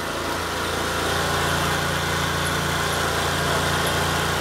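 Dafra Citycom 300i scooter's single-cylinder engine running steadily on its stand, driving the rear wheel. The sound is smooth, and the wheel now turns without jumping, the seized bearing on the axle having been sorted out.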